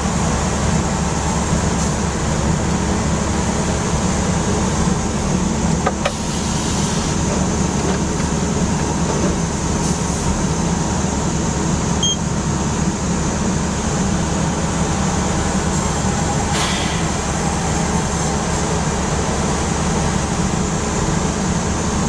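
Steady drone of a sawmill line's machinery (roller conveyors, log-handling gear and saws running), with a strong low rumble, heard through the glass of the operator's booth. A couple of faint clanks cut through, about six seconds in and again near seventeen seconds.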